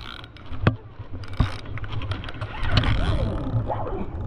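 Indistinct talking over a steady low rumble, with two sharp clicks in the first second and a half.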